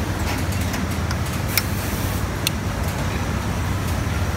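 A metal tool clicking against an industrial sewing machine's looper mechanism during a timing adjustment, sharply twice, about one and a half and two and a half seconds in, over a steady low hum.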